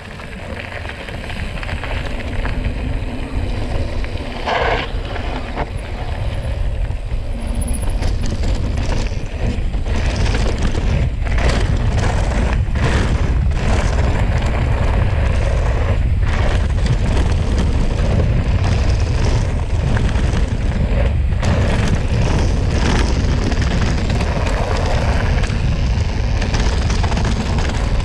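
Wind rumbling on the camera microphone over the rattle and knocks of a Cube Stereo 150 TM full-suspension mountain bike riding down a rough trail. It grows louder over the first ten seconds, then stays steady.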